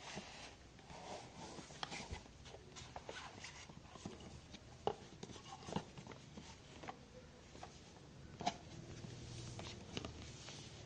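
Cardboard phone packaging being handled: faint rustling and scraping of boxes, with scattered light taps and clicks as they are lifted and set down, the sharpest about halfway through and again near the end.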